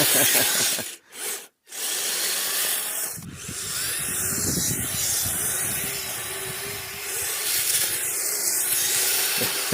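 Electric RC vehicle, the Kyosho Midnight Blizzard's 380 motors, driven wide open through snow: a steady motor whine over a continuous churning hiss. The sound drops out twice, briefly, about a second in.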